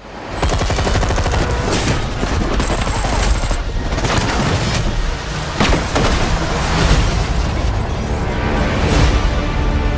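Loud trailer-style soundtrack that bursts in suddenly from silence: dense, rapid percussive hits and booming impacts over music, with held notes coming in near the end.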